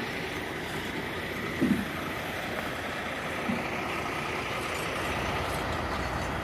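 Heavy truck engine running steadily while a truck wheel is hoisted on straps, with two short low thumps.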